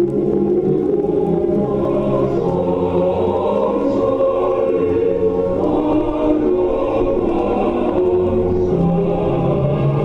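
A recorded choir singing a slow national anthem with instrumental accompaniment, the voices holding long notes.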